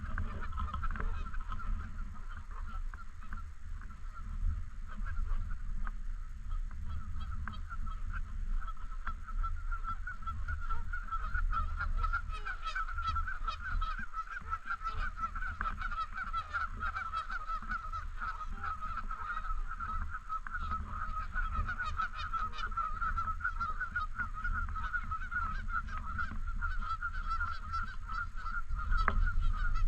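A flock of Canada geese honking continuously, many calls overlapping, over a steady low rumble.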